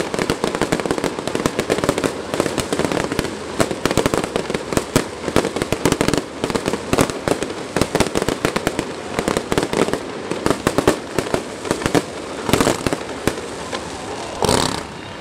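Aerial fireworks going off in a dense, rapid run of crackling bangs and pops, with a longer, louder burst near the end.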